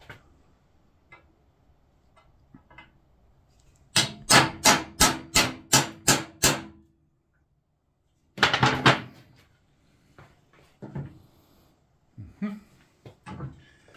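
Hammer blows on a steel punch driven into a motorcycle frame's steering-stem lock: a quick run of about eight sharp, ringing metal strikes, about three a second, followed by a brief louder clatter and a few light taps. The punch is being knocked in to break the lock's internal pin, and the lock is bottoming out so it won't go in any further.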